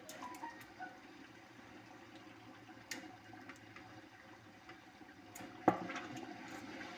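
Tomato stew simmering and bubbling in a stainless steel pot while a wooden spoon stirs it. There are a few light clicks and, late on, one sharp knock of the spoon against the pot.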